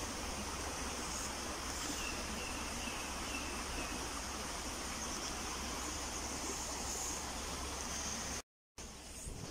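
Birds chirping over a steady rushing hiss, with a short run of about five quick repeated high notes a couple of seconds in. The sound drops out for a moment near the end.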